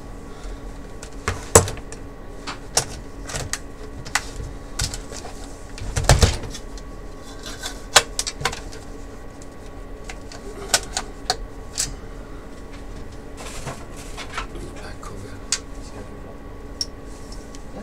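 Scattered clicks and knocks of a Dell E177FPb LCD monitor's sheet-metal chassis and plastic parts being handled and pressed into place during reassembly, with a short clatter about six seconds in.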